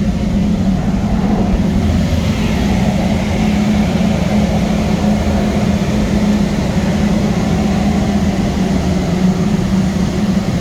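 Steady roar of a steam boiler's burner firing, with its blower adding a constant low hum.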